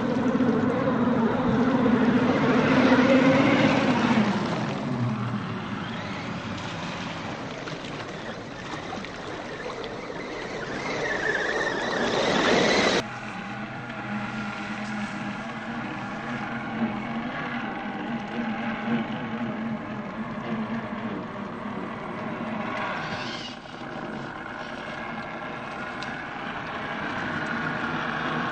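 Electric drive motors and gearboxes of radio-controlled scale off-road trucks whining as they plough through a muddy puddle, with water splashing, loudest in the first few seconds. About 13 seconds in the sound changes abruptly to a steadier motor whine as an RC 6x6 truck crawls through mud and water.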